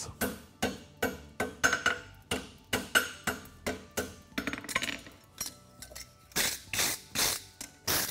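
Hand hammer striking a red-hot concave steel horseshoe over the anvil horn, about three light, ringing blows a second as the shoe's quarters are bent. After a short lull, a few louder blows come near the end.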